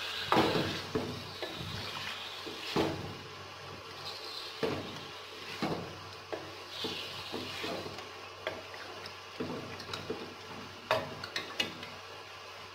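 Beef cubes frying in hot oil in an aluminium karahi, stirred with a wooden spatula: a soft sizzle under irregular knocks and scrapes of the spatula against the pan.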